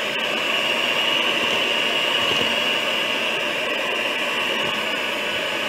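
Black & Decker electric hand mixer running steadily with a constant high whine, its beaters churning flour, milk, eggs and melted butter into donut batter.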